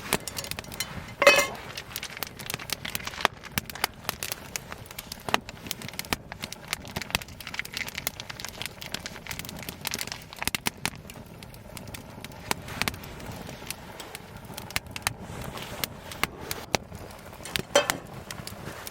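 Wood fire crackling, with an irregular run of small snaps and two louder pops, one about a second in and one near the end.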